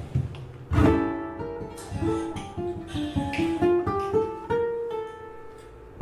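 Ukulele picked in single notes: a short melody that steps down and then climbs, ending on a held note.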